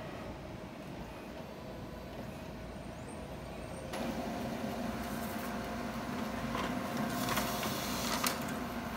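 Xerox WorkCentre 3655 laser copier working through a copy: a steady hum while it processes the scanned page, then about four seconds in the print engine starts up louder, with a few clicks as the sheet is fed through and the copy comes out into the output tray.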